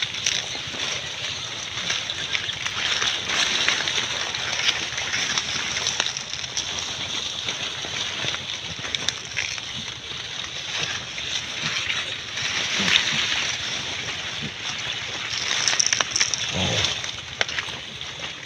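Pigs rooting and feeding in a heap of wet water hyacinth: steady rustling and wet crackling of leaves and stems, with many small clicks.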